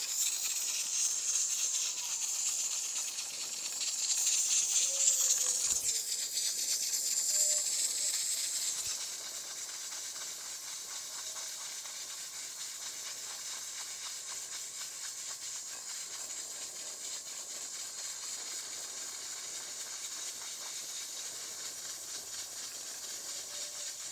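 Pressure cooker venting steam at pressure: a loud hiss for the first eight seconds or so, then easing to a steadier, quieter hiss.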